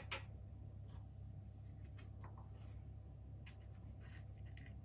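Quiet room with a low steady hum and scattered faint clicks and light taps; one slightly louder click comes right at the start.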